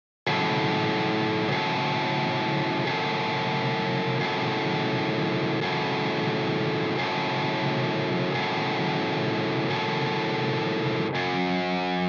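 Distorted electric guitar playing a slow heavy metal intro, a sustained chord changing about every second and a half, starting just after a brief gap. Wind noise from the Tonsturm Windmaschine plugin is laid under it.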